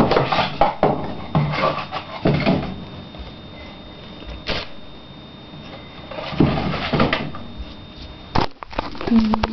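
Laundry being handled and shaken out: several bursts of cloth rustling and flapping, with a few sharp knocks in between and a short low tone near the end.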